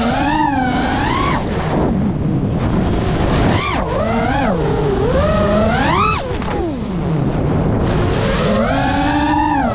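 FPV freestyle quadcopter's motors whining, the pitch surging up and dropping back again and again as the throttle is punched and cut through flips and banks, over a steady rush of wind on the onboard microphone.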